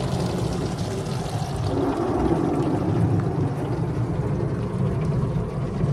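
Automatic car wash spray raining down on the car's roof and windows, heard from inside the car: a steady hiss of water over a low rumble.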